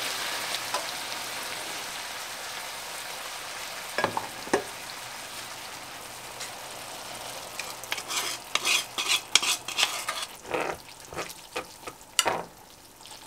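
Beef, green onion and boiled spaghetti sizzling in a nonstick frying pan, the sizzle slowly fading. A couple of knocks come about four seconds in, then from about eight seconds a quick run of clicks and scrapes as chopsticks stir and toss the noodles in the pan.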